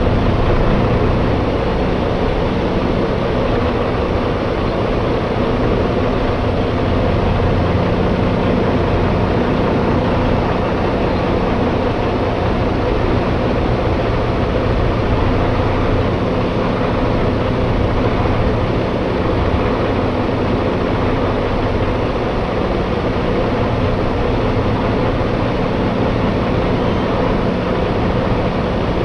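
Steady drone of a semi-truck's diesel engine and road noise while driving, holding an even level throughout.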